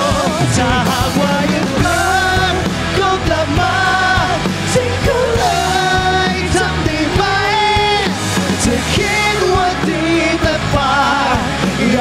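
Pop-rock band playing live: a man singing lead over electric guitar, bass guitar and drum kit.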